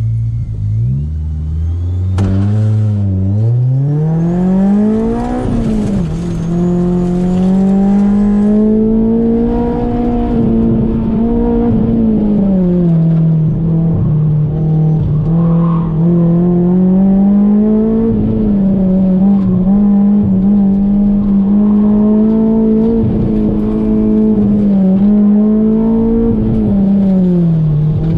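Honda S2000's four-cylinder engine heard from inside the cabin, pulling away from a standstill and revving up with a sharp drop in pitch about five seconds in as it shifts up. It then runs hard at around 30 mph, its pitch rising and falling again and again as the driver lifts off and gets back on the throttle.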